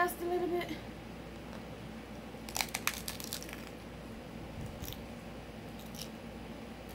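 A crisp hard-shell taco crunching as it is bitten: a quick cluster of crackles about two and a half seconds in, then a few fainter crunches as it is chewed.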